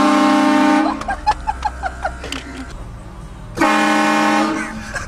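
Vehicle-mounted air train horn, a set of four horns fed by an onboard compressor, blasting twice for about a second each, the second blast about three and a half seconds after the first. Each blast is a steady chord of several tones.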